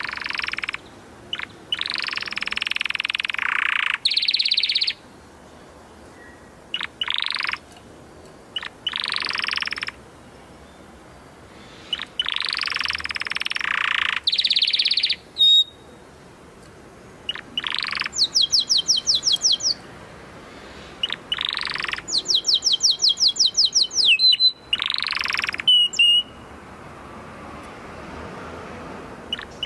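Domestic canary singing: phrases of dense rolling trills broken by short pauses, and from about two-thirds of the way in, runs of rapid repeated high notes.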